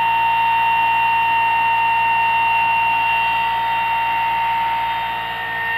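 Homemade pulse motor running on 12 volts with four drive coils, its rotor disc spinning: a steady high-pitched whine over a low hum.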